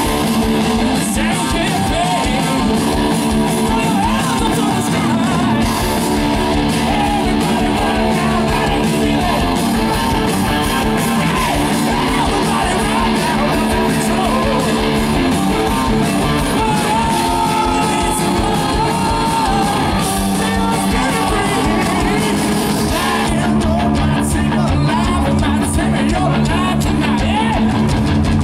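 Live hard rock band playing loud through a large PA, heard from among the crowd: distorted electric guitars, bass, drums and Hammond organ. Near the end the bass and drums come in heavier.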